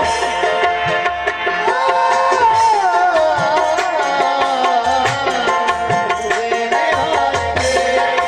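Qawwali music: harmoniums holding a melody over tabla strokes, with a voice sliding through a wavering wordless melodic run in the middle.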